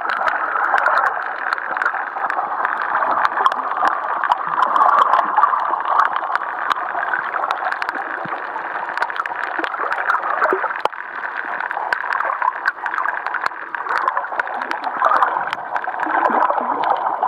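Water gurgling and rushing, recorded underwater, as a steady muffled noise with many short sharp clicks scattered through it.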